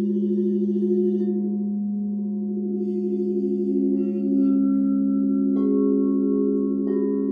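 Several crystal singing bowls ringing together in overlapping sustained tones. A new lower tone swells in with a pulsing wobble a few seconds in, and two more bowls are struck, one after another, near the end, each adding a fresh ringing tone.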